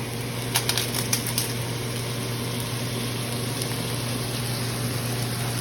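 Sliced chicken breast frying in sesame oil and oyster sauce in a pan, a steady sizzle over a constant low hum, with a few short clicks about a second in.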